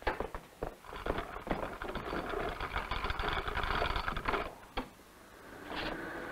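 Comic machine sound effect for a make-over machine: rapid mechanical clattering for about three seconds that stops, then a steady whirring hum starting near the end.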